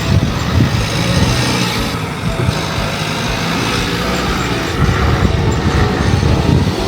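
A four-wheel-drive vehicle driving along a track: the engine runs steadily under loud, dense road and body noise.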